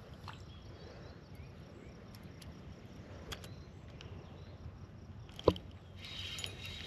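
Quiet outdoor background with a steady low rumble, broken by a few light clicks from handling a spinning rod and reel, the sharpest about five and a half seconds in. A faint high hiss sets in near the end.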